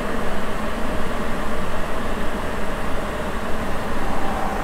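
Sapporo Municipal Subway 9000-series rubber-tyred train running between stations on the Tōhō Line: a steady rush of running noise with a faint steady tone through it.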